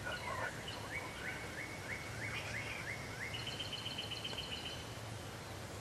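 A songbird singing: a run of about eight quick down-slurred whistles, then a higher, faster trill of about a second and a half, over quiet outdoor background.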